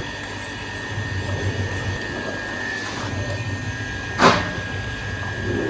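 Steady machine hum with a thin, steady high whine, broken once by a sharp knock a little past four seconds in.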